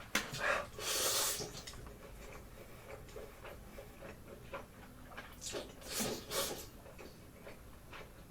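Mouth sounds of someone eating very spicy instant noodles: a loud sharp suck through the mouth about a second in and two more about six seconds in, with quieter chewing and smacking between.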